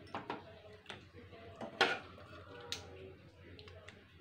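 Serving spoon clinking and scraping against a metal cooking pot and a bowl as curry is spooned out: several sharp knocks, the loudest about two seconds in.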